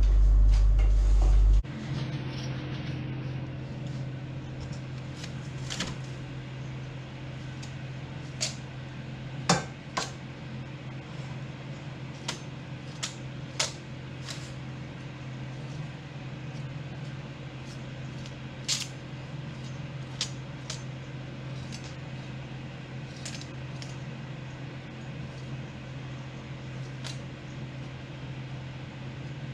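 Kitchen handling sounds: dishes, utensils and cookware clinking and knocking now and then, about a dozen sharp clinks, over a steady low electrical hum. A loud low rumble cuts off suddenly about a second and a half in.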